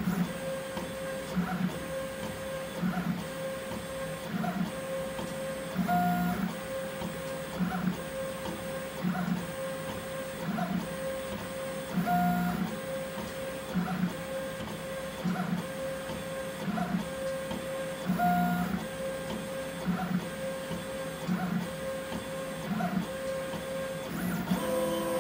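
Bad Robin DIY 3D printer printing: its stepper motors whine in short pitched strokes about every three quarters of a second as the print head and bed move back and forth, with a stronger stroke about every six seconds. A faint steady hum from its cooling fan runs beneath.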